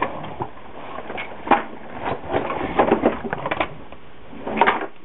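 Irregular knocks, clicks and rustles of plastic airsoft guns being handled and moved about, loudest about a second and a half in, around three seconds in, and near the end.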